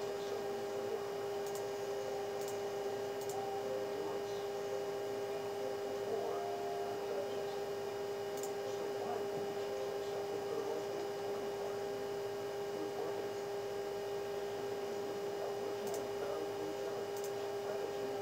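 Steady electrical hum: one low tone held without change, with a weaker tone about an octave above it.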